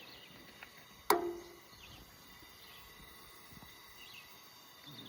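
Quiet outdoor ambience with faint, scattered short bird chirps. About a second in comes one sharp clink that rings briefly.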